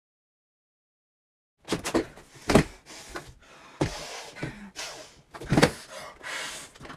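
Silence for about the first second and a half, then thumps of hands and body against a wooden interior door, several sharp knocks among breathy gasps.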